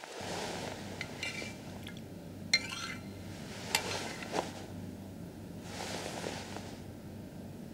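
A spoon clinking against a small bowl of medicine as it is stirred and lifted: a few light clinks, the sharpest about two and a half seconds in.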